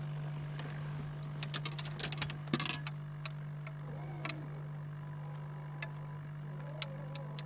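A steady low electric hum on the fishing boat, with a quick run of clicks and light rattles about one and a half to three seconds in as the angler handles the fish and tackle, then a few scattered ticks.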